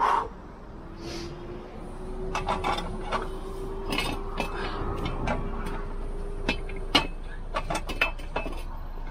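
Metal clicks and clanks of a car tow dolly's steel cross bar and wheel skates being handled and fitted under a car's wheel, with a faint steady hum through the middle.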